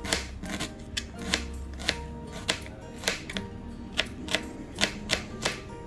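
Knife slicing down onto a cutting board in a run of sharp, uneven taps, about two to three a second, over background music.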